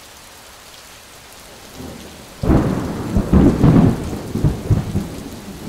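Runoff water splashing and churning, loud and uneven, with many irregular slaps. It breaks in suddenly about two and a half seconds in, after a quieter stretch.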